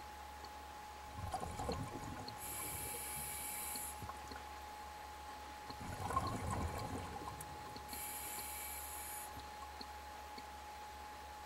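Scuba diver breathing through a regulator underwater, twice: each breath is a bubbly gurgle of exhaled air followed by a steady hiss from the regulator as the next breath is drawn.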